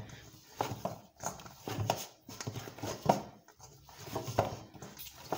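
Hands kneading soft, oiled chapati dough in a stainless-steel bowl, a dull thump with each push, about once a second.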